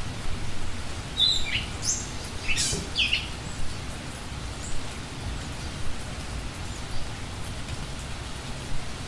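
Small birds chirping, several short high calls in the first three seconds or so, over a low, uneven rumble.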